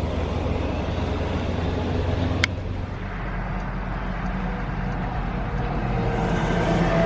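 Car driving, steady road and engine noise heard from inside the cabin, with one sharp click about two and a half seconds in.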